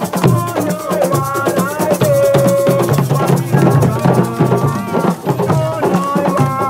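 Several voices singing over fast hand percussion: drums and a shaker keeping a quick, even rhythm.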